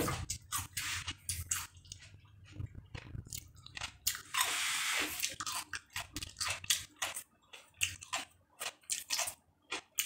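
Close-up mouth sounds of someone chewing firm melon, a quick run of wet clicks and smacks. About four seconds in comes a breathy rush lasting about a second.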